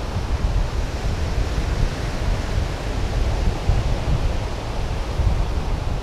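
Wind buffeting the camera microphone in a heavy, uneven low rumble, over a steady wash of surf.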